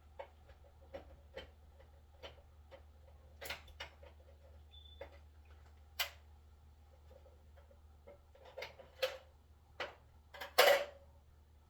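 Scattered small clicks and taps from hand work on the electrical cover plate and its screws of an electric water heater, with a louder scraping clatter near the end.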